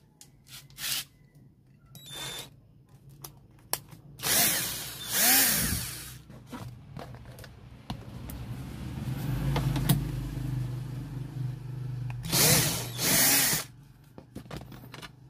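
Cordless drill with a socket on it, spinning out a car seat's tight 12 mm mounting bolts in several runs. The motor's pitch rises and falls, and it is loudest about four seconds in and again near the end.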